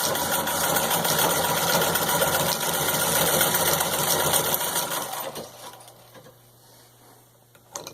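Antique Howard treadle sewing machine running steadily under the treadle, with its metal treadle belt rubbing against the machine body; it slows and stops a little after five seconds in.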